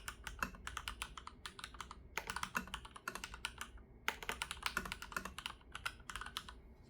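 Leopold FC980M PD mechanical keyboard with Cherry MX2A Black linear switches on a hot-swap PCB, typed on quickly in runs of keystrokes with short pauses between them.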